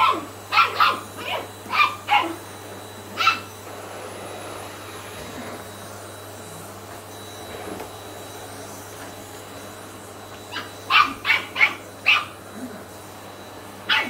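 Shetland sheepdog puppy barking in high-pitched barks at a running canister vacuum cleaner. A quick run of about six barks comes at the start and one more about a second later. After a pause of several seconds, another run of about five comes near the end, over the vacuum's steady hum.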